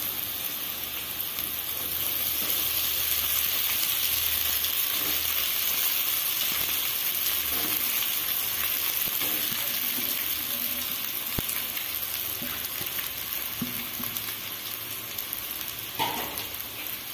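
Steady sizzle of onion, green chilli and well-cooked tomato frying in oil in a kadai, continuing as the cooled ragi semiya is added on top.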